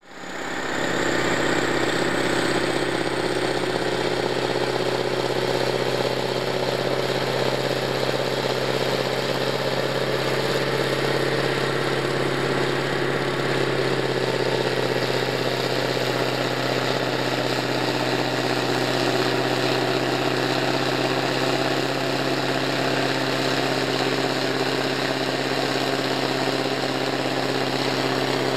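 Giant self-propelled Øveraasen rotary snow blower, rated over 2000 hp, running steadily while it throws snow: a constant low engine and impeller drone under a broad rushing hiss. It fades in over the first second.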